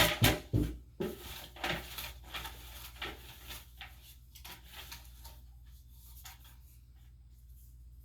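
Raffle tickets being mixed and drawn by hand: irregular rustling with light knocks and clicks. It is busiest at first and thins out over the first few seconds, leaving faint room tone.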